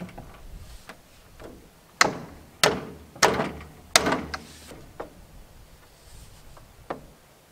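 Four loud, sharp knocks about two-thirds of a second apart, then two lighter ones, as PVC downspout pipe is knocked and worked into its fittings.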